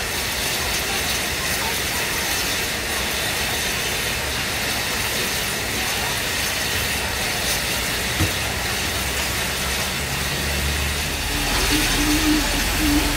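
Railway locomotive standing at a station: a steady hissing noise, a single sharp click about eight seconds in, and a low rumble with a wavering hum that builds near the end.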